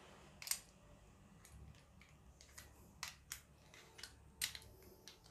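A few faint, scattered metallic clicks and taps of steel hardware (eye bolt, washers, hex bolt and clamp) being handled, as the hex bolt is turned by hand.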